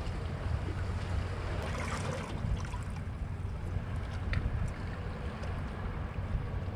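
Sea water washing against shoreline rocks, an even wash with a steady low rumble underneath and a few faint ticks.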